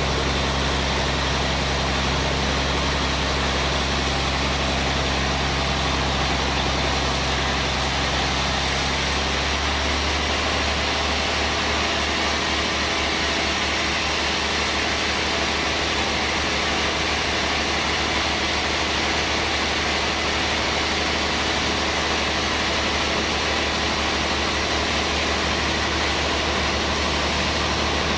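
Band sawmill running steadily: a motor hum under a broad hiss. About a third of the way in, the low hum changes and stays changed.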